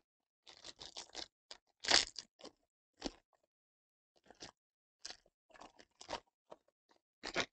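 Foil wrapper of a Panini Absolute football card pack crinkling and tearing as it is ripped open by hand, in irregular crackles, the loudest about two seconds in.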